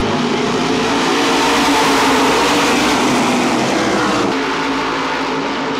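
A full field of SK Modified race cars running in a pack, a loud dense wall of engine noise. The sound changes abruptly about four seconds in.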